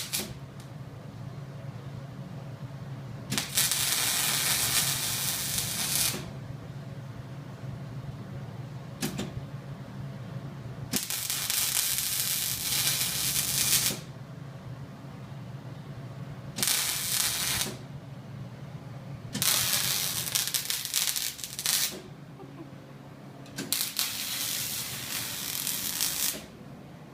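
MIG welder arc sizzling in five short runs of one to three seconds each, as the trigger is squeezed and released to lay beads for letters, with a low hum between runs. It is the steady frying sizzle, not popping, of a well-running arc.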